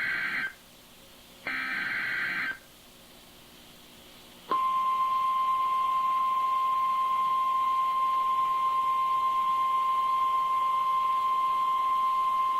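Emergency Alert System SAME header: the end of one short buzzy digital data burst, then another full burst about a second and a half in. After a brief pause, the NOAA Weather Radio 1050 Hz warning alarm tone starts about four and a half seconds in and holds one steady pitch, signalling that a warning message is about to be read.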